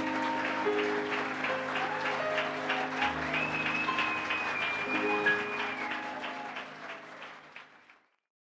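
Audience applauding as the piano's final chords ring, with a long high whistle in the middle. The whole sound fades out shortly before the end.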